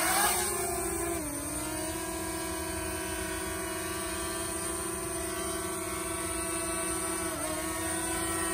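DJI Mavic Mini quadcopter's propellers spinning up with a rising whine as it lifts off, then a steady whine while it hovers. The pitch dips briefly about a second in and again near the end.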